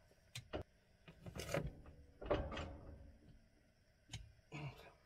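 Loppers snipping and crunching through an old cow's overgrown front hoof during hoof trimming, with knocks and rattles from the steel squeeze chute. The sound comes as several short, irregular snaps and knocks.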